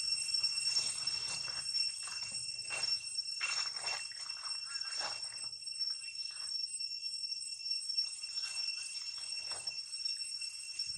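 Outdoor ambience: a steady high-pitched insect drone, with several brief rustles through the first half and a couple more near the end.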